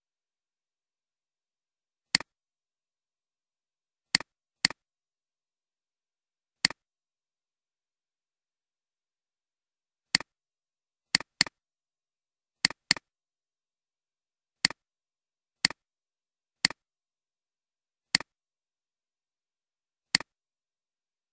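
Computer mouse clicks, about fourteen sharp single clicks, some in quick pairs like double-clicks, with silence between them.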